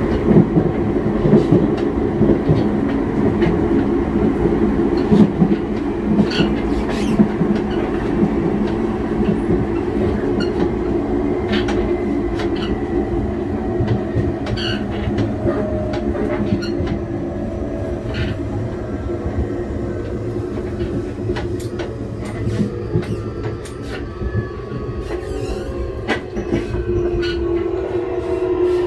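Running sound of a Nankai 8300 series and 12000 series electric train, heard at the gangway between the coupled cars: a steady low rumble with scattered clicks from the rail joints. In the second half a motor whine falls gradually in pitch as the train slows.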